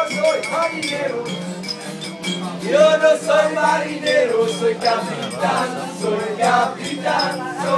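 A group of young men singing together in a loud sing-along. The voices swell about three seconds in.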